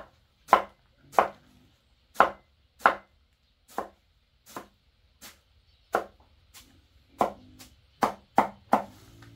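Chopping with a blade on a wooden block: about fifteen sharp chops at an uneven pace, coming quicker near the end.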